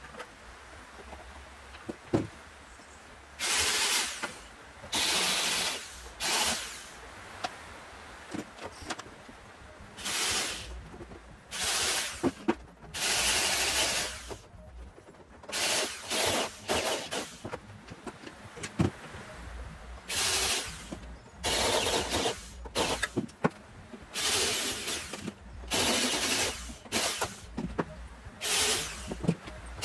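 Drill run in about fifteen short bursts, each under two seconds, boring spot-weld holes through the top layer of a new steel rear body panel. There are a few sharp clicks between the bursts.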